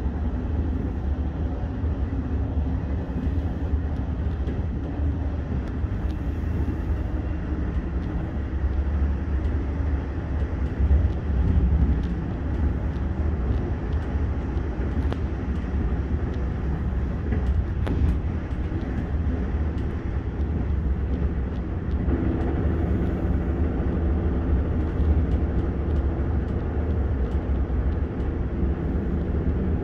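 Passenger train running at speed, heard inside the carriage: a steady low rumble with scattered light clicks and rattles.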